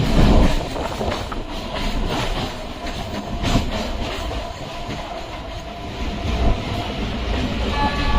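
Electric suburban train of the Chennai MRTS line running along the track: a steady rumble with wheels clacking over rail joints every second or so, and a faint whine coming in near the end.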